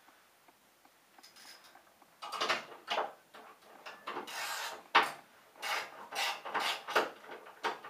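Hand tools working the nuts off the U-bolts that hold a box to an ATV: a run of short scraping, rasping strokes at irregular intervals, starting about two seconds in.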